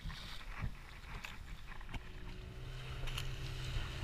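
Fishing boat's engine running under wind and water noise, with a few knocks. About halfway through, its steady low hum comes in more strongly and grows a little louder.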